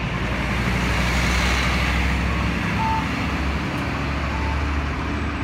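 A city bus passing at close range: low engine rumble and road noise that swell about a second in and then ease off. A few short high beeps sound in the middle.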